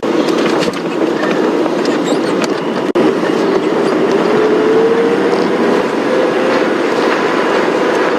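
Open safari game-drive vehicle driving over a rough bush track: a steady engine drone with rattling and clatter from the vehicle.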